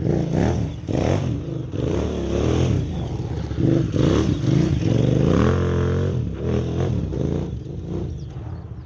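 KTM 990 Adventure's V-twin engine revving up and down over and over as the motorcycle is ridden, its pitch rising and falling every second or so, and dying away near the end.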